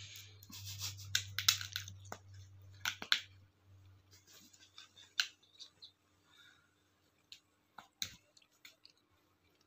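Soft scattered taps and rustles as a cat paws at a tablet screen and shifts on bedding, busiest in the first three seconds and sparser after, over a faint low hum that fades out about four seconds in.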